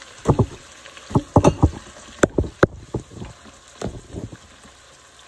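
A run of about a dozen short, dull knocks and clunks, bunched in the first four seconds, over a faint steady sizzle of meatballs frying in oil.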